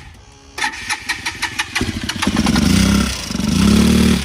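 Fuel-injected motorcycle engine being started: a quick chatter of cranking about half a second in, then it catches and is blipped on the throttle, rising and falling in pitch twice. It is an engine that starts but runs unsteadily and dies when the throttle is let off.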